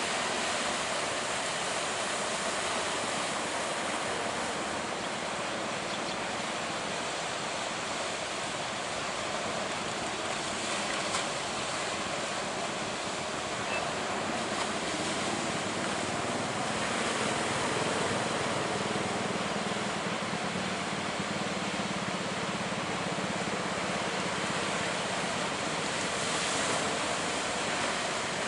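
Big ocean waves breaking in a continuous rush of surf, swelling louder a couple of times as sets roll in.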